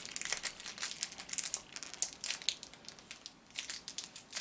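Plastic packaging crinkling and rustling in irregular, close-spaced crackles as hands unwrap an action figure.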